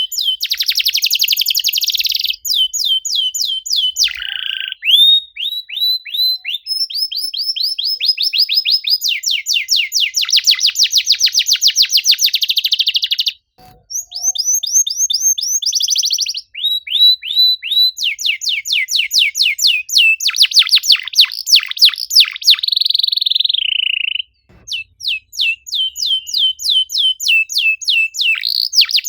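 Domestic canary singing a fast, dense song of rapid trills and repeated high chirps, with two short breaks, about halfway and near the end.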